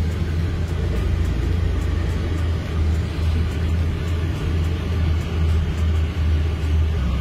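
Iveco EuroCargo truck's engine running steadily as it drives along a sandy track, heard from inside the cab as a continuous deep drone.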